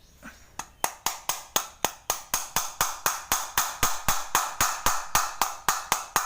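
Hammer striking rivets into a motorcycle clutch housing over and over, about four sharp metallic blows a second, starting about half a second in and stopping just before the end. The rivets are being set to cure the housing's rattling clutch noise.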